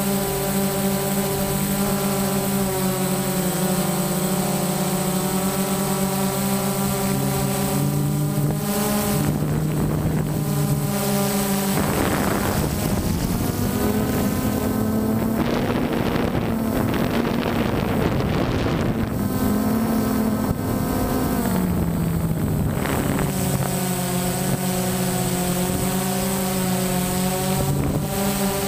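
DJI Phantom quadcopter's electric motors and propellers whining steadily, heard close up through the drone's own GoPro. In the middle the pitch climbs and wavers and the sound turns rougher, with some wind noise, then it settles back to the steady whine near the end.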